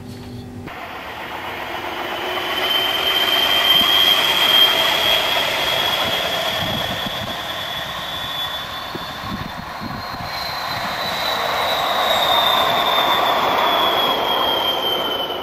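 Bombardier Incentro trams running past on their rails. There is a rumble of wheels on track that swells twice as one tram passes and another comes up, over a high steady whine that falls in pitch near the end.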